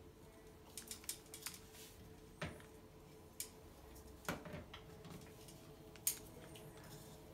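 Scattered small clicks and taps of an inspection-camera cable being worked down into a drained toilet's porcelain bowl and drain, a few of them louder, over a faint steady hum.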